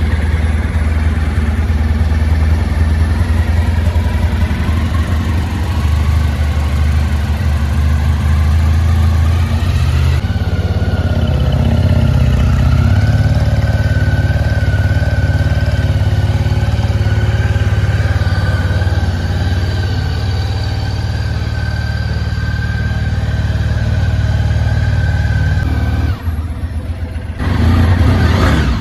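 Honda RVF750 (RC45)'s 750 cc V4 engine idling steadily. Near the end the sound dips for about a second, then comes back louder.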